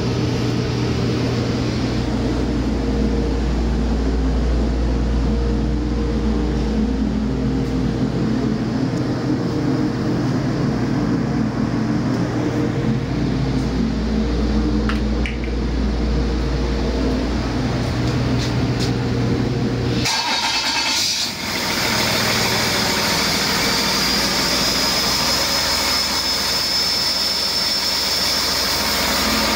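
2008 Cummins ISB 6.7L inline-six turbo diesel idling steadily with an even low rumble. About twenty seconds in, the sound turns brighter and hissier, with a thin high whine from the turbocharger that rises slightly.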